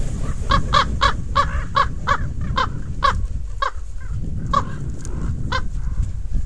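Ravens calling: a rapid series of short, harsh caws, about three a second for the first few seconds, then a few more spaced calls, over a steady low rumble.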